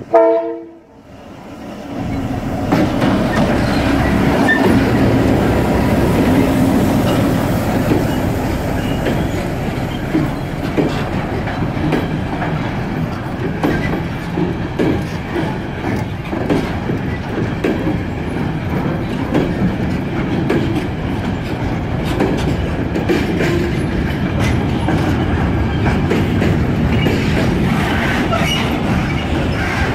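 Covered sliding-wall freight wagons rolling slowly past at close range: a steady rumble of wheels on rail with a run of clicks and rattles. A brief locomotive horn blast sounds at the very start and breaks off.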